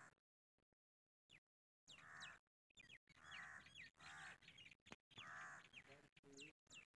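Crows cawing: several harsh calls about two to six seconds in, mixed with higher, downward-gliding chirps from small birds.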